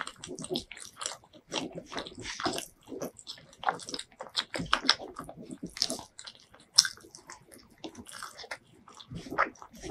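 Close-miked eating sounds: a person chewing and biting mouthfuls of curry-soaked rice eaten by hand, a string of irregular wet clicks and smacks, the sharpest about seven seconds in.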